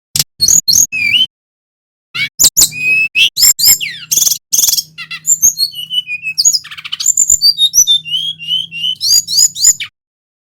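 Male brown-chested jungle flycatcher (sikatan rimba dada coklat) singing a rapid, varied song of sharp rising and falling whistles and chattering notes. A short phrase is followed by a pause of about a second, then a long unbroken run of song that stops shortly before the end.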